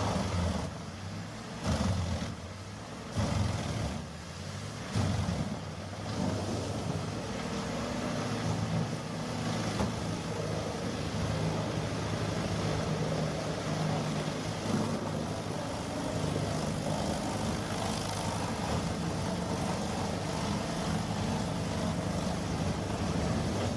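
HG6800TX horizontal shredder running, its engine giving a steady low drone, with several heavy thumps in the first six seconds.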